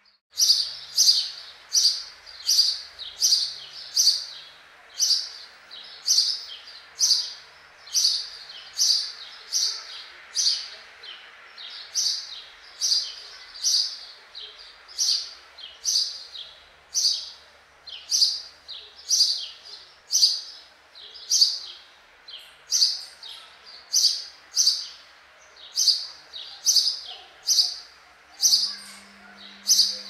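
Sparrow chirping: a steady run of short, high single chirps, about three every two seconds, over a faint steady hiss.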